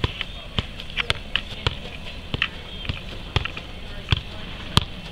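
Soccer ball being juggled: a string of short thumps as the ball is kicked and kneed, about two touches a second, unevenly spaced.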